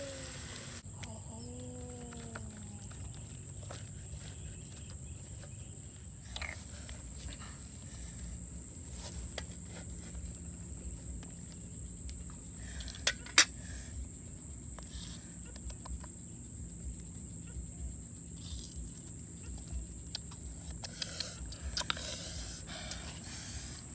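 Pork sizzling in a frying pan for a moment, then a cut to quiet outdoor sound. A few chicken-like calls come in the first seconds, and a steady high whine runs beneath. Scattered clicks and taps of hands handling food, a plate and a cleaver follow, with two sharp knocks about halfway through the loudest.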